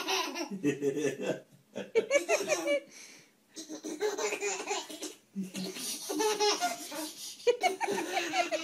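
A baby laughing hard in repeated fits of belly laughs and giggles, with short pauses between them.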